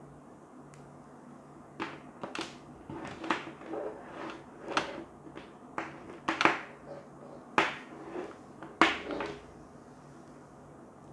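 Plastic cable connectors and plugs of lamp power cords clicking and knocking against a tabletop and each other as the cords are handled: a run of sharp, irregular knocks starting about two seconds in and stopping about a second before the end.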